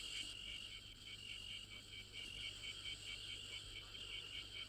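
Faint, steady chirping of crickets: a high, rapid pulsing, about four to five chirps a second.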